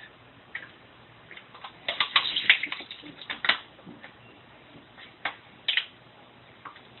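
Aluminium beer can being bitten and worked at with the teeth to tear it open: a dense run of crinkling metal clicks and crackles about two seconds in, then a few single clicks.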